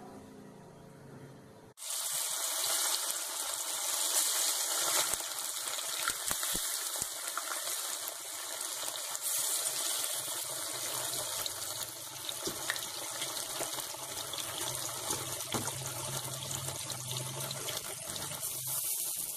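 Marinated fish frying in hot oil: a steady sizzling hiss with scattered pops, starting suddenly about two seconds in.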